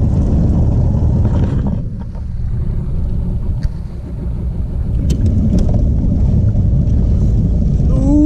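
Old outboard motor running steadily, pushing the boat along, a dense low rumble.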